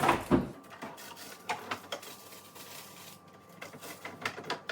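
Food packets and containers being handled and set down: a string of light knocks, clicks and rustles, with a loud cluster at the start and a quicker run near the end.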